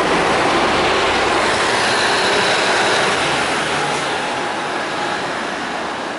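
A 1997 Isuzu KC-LV380N city bus with a Nishi Nippon Shatai 96MC body pulling away from the stop, its Isuzu diesel engine running and fading as it drives off.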